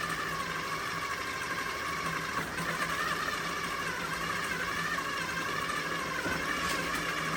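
Electric food processor motor running steadily, mixing dry biscuit ingredients with butter.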